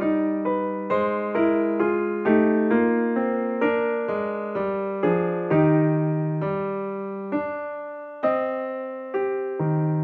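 Background music: a piano-like keyboard playing a slow melody of single struck notes, each fading away before the next.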